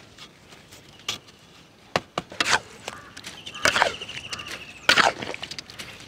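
A steel trowel working cement mortar in a metal pan and on a ring of bricks: irregular knocks, taps and scrapes, the sharpest around two and five seconds in.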